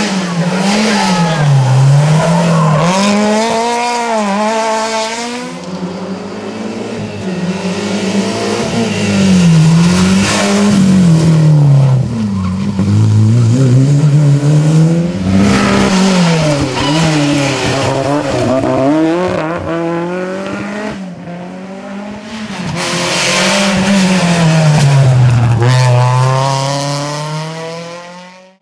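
Rally car engines revving hard, their pitch climbing and dropping again and again through gear changes and lifts off the throttle. The sound fades out just before the end.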